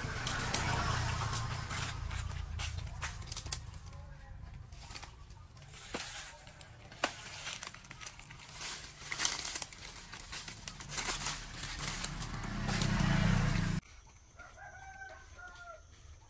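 Footsteps crunching through dry leaves and undergrowth, with sharp crackles and snaps over a steady low rumble. About fourteen seconds in the rumble cuts off abruptly, and a chicken calls faintly.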